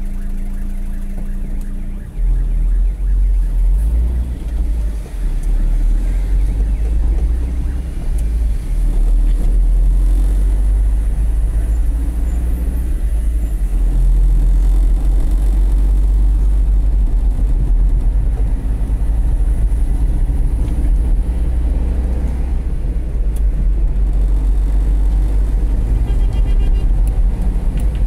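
A car's engine idling, then about two seconds in the car pulls away and drives on with a steady low rumble of engine and road noise.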